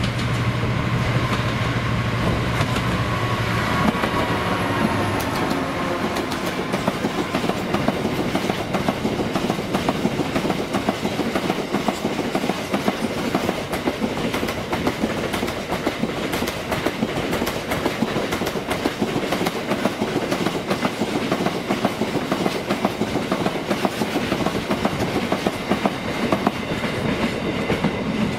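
A Class 66 diesel freight locomotive running past, its two-stroke engine heard as a steady low tone for the first few seconds. Then a long rake of box wagons passes, the wheels making a fast, continuous clickety-clack over the rail joints.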